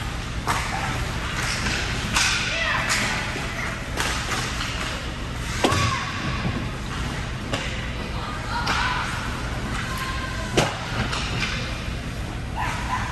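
Ice hockey play: skates scraping and carving the ice, with several sharp clacks of sticks and puck, the loudest a little past ten seconds in, over a steady low hum.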